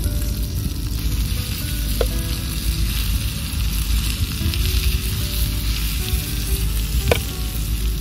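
Kansai-style okonomiyaki batter with shredded cabbage sizzling steadily as it is poured and pushed with tongs from a bowl onto a hot griddle pan over a wood fire.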